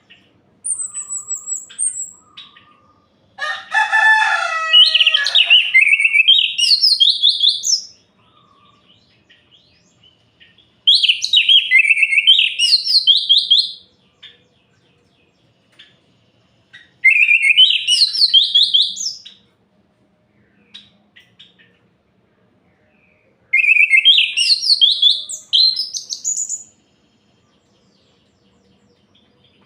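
Orange-headed thrush singing: four warbled song phrases of about three seconds each, each climbing in pitch toward its end, with pauses of several seconds between them. A short high call comes about a second in, and the first phrase opens with lower notes.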